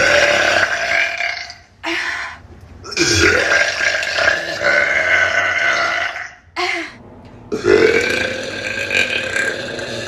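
A woman burping: three long, drawn-out burps, with two short ones between them.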